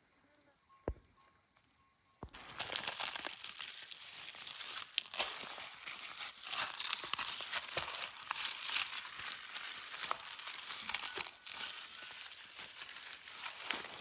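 Near silence with a single click, then about two seconds in a sudden start of dense crackling and rustling, full of fine sharp crackles.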